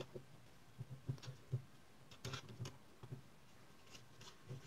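Faint, scattered clicks and light knocks as the arms and alligator clips of a helping-hands soldering stand are handled and adjusted.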